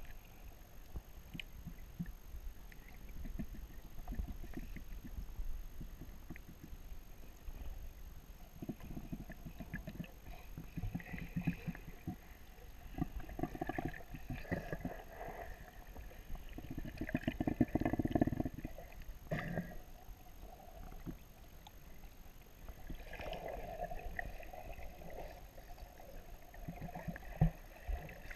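Muffled underwater noise picked up through an action camera's waterproof housing: a low rumble and crackle of water moving against the case as it drifts, louder for stretches about 14 and 18 seconds in, with a sharp click near the end.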